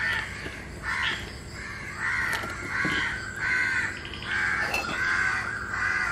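A crow cawing over and over, a harsh call about once a second.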